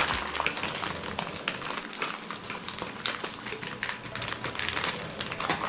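Scissors snipping through a plastic mailer pouch, with the plastic crinkling and rustling in many quick crackles as it is handled and pulled open.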